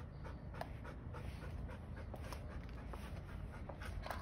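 Belgian Malinois panting after play, faint quick breaths at about three a second.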